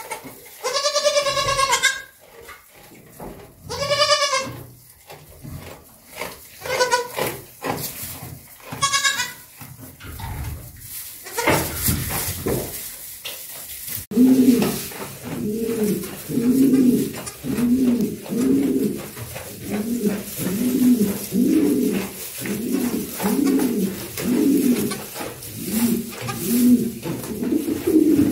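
Newborn goat kids bleating: four loud, high-pitched bleats in the first half, with straw rustling between them. After a break, a run of low, soft calls repeats about once a second.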